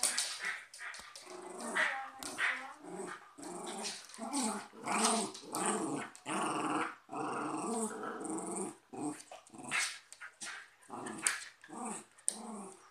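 A cocker spaniel and a West Highland white terrier growling on and off as they play-fight and tug at a soft toy.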